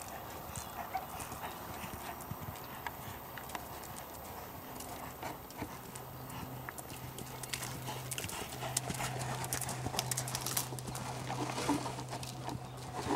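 Hoofbeats of a ridden Belgian Warmblood gelding on a sand arena: a steady run of hoof strikes that grows louder in the last few seconds as the horse comes close.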